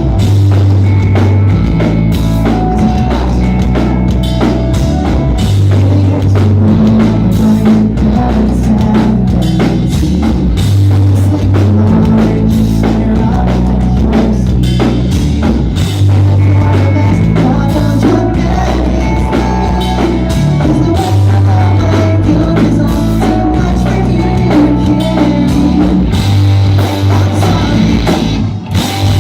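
Pop-punk band playing live: a loud full-band rock sound driven by a drum kit, with low bass notes held for a second or two at a time. The music drops out for a moment near the end and comes straight back in.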